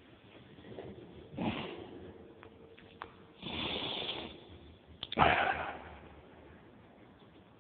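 A person's breathy noises, such as sniffs or a sneeze or throat-clearing: three loud bursts, the longest about a second, with a few small clicks between them.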